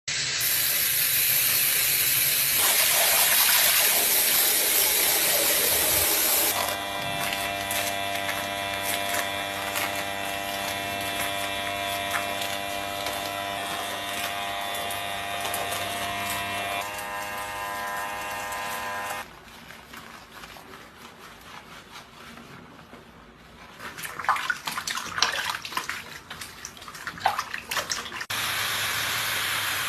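Water spraying as a hiss, then a small electric motor humming steadily for about twelve seconds, then quieter handling noise with scattered knocks before the water hiss starts again near the end.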